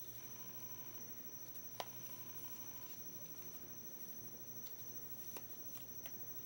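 Quiet room tone with a steady high electronic whine and a low hum, broken by a few faint clicks, the sharpest about two seconds in and two smaller ones near the end.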